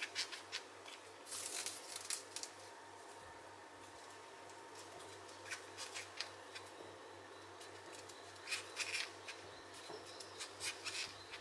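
Faint scratching and rustling of a crochet hook pulling yarn through stitches, in short spells of quick small scratches a few seconds apart.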